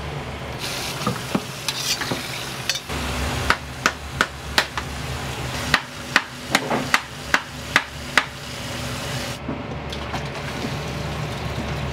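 Metal ladle knocking against a wok during stir-frying, over a steady sizzle and low hum. A run of sharp clanks comes about two a second through the middle.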